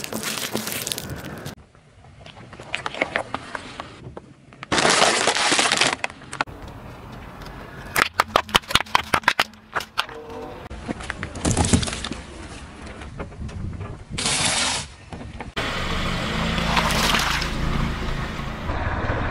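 A car tyre rolling slowly over small objects on asphalt and crushing them, in several short clips cut together: bursts of crunching and cracking, with a quick run of about a dozen sharp pops about eight seconds in. The objects include foil-wrapped chocolate eggs, laundry detergent pods and a soft green putty.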